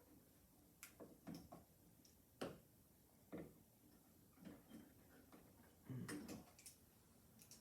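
Faint, irregular clicks and light knocks of hand work: electrical wires and a light switch being pushed and folded into a wall box, a cluster of louder knocks about six seconds in.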